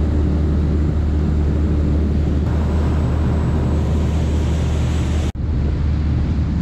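Fishing boat's engine running steadily under way, a loud low drone with the rush of wind and water over it. The sound breaks off for an instant about five seconds in.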